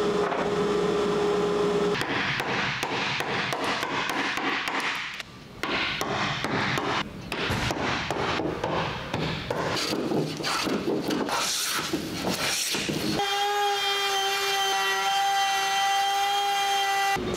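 Woodworking on yellow cedar. A steady machine hum at first, then many sharp taps of a hammer driving a chisel. For the last few seconds a handheld router runs with a steady high whine as it cuts grooves.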